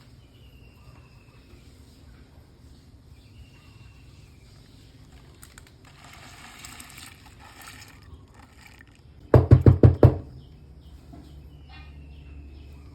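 Five quick, sharp knocks in a row about nine seconds in, over a quiet background with a few short falling chirps.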